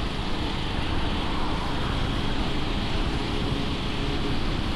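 Motorcycle on the move: a steady engine hum under a constant rush of wind and road noise on the microphone.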